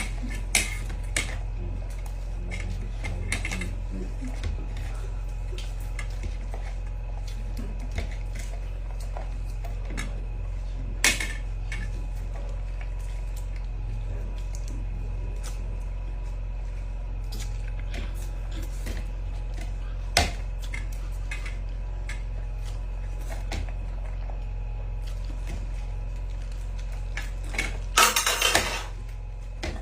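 Utensils clinking and scraping against bowls as instant noodles are eaten, in scattered sharp clicks over a steady low hum, with a louder stretch of clattering noise about a second long near the end.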